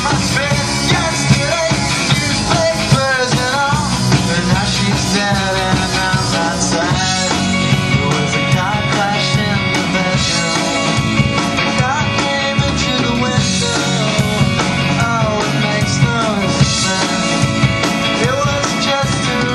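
Rock band playing live, a loud, steady full-band mix, with a melody line bending up and down in pitch over sustained bass notes.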